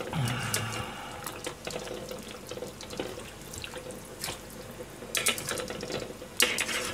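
Water sloshing and dripping in a small pan as pieces of boiled food are scooped out by hand and with a ladle, with short clinks of the utensil against the metal pan, the sharpest about five and six and a half seconds in.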